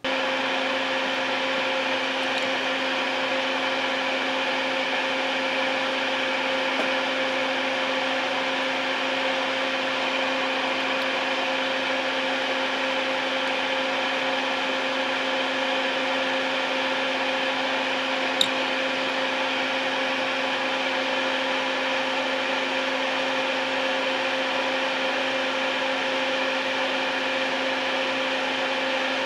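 Electric ventilation fan running steadily: a constant motor hum under a rush of air, turned on to clear the fumes of plastic solvent cement.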